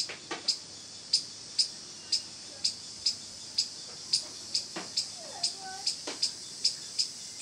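A small animal's high, sharp chirping call, repeated evenly about twice a second.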